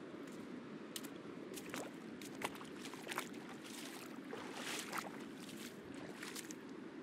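Footsteps on a wet, exposed coral reef flat: irregular short crunching steps over a steady low wash of distant surf.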